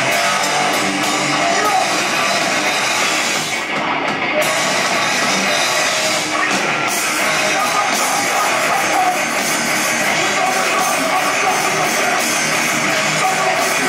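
A loud rock band playing live: electric guitars, bass and a drum kit going at full volume, the sound thinning out briefly about four seconds in.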